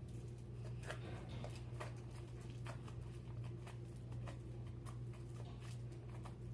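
Slime being squished and worked by hand, a string of faint, irregular small clicks and pops, over a steady low hum.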